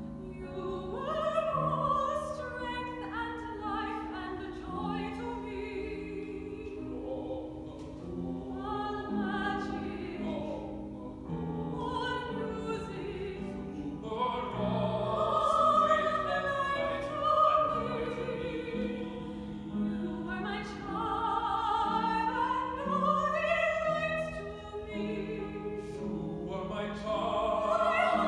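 A woman singing solo in a classical style, holding long notes with wide vibrato over a sustained instrumental accompaniment.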